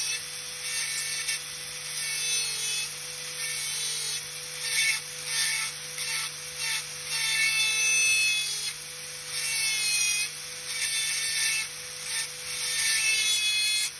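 Dental handpiece with a round bur cutting into a model tooth: a steady running tone under a gritty grinding hiss that swells and fades every second or two as the bur is pressed against the tooth and eased off.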